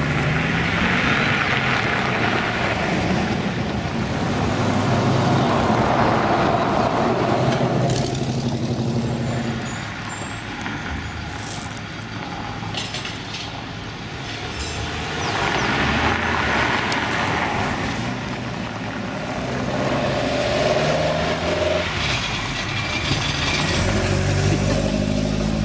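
Several cars driving past one after another, the engine and tyre noise of each swelling as it nears and fading as it goes away.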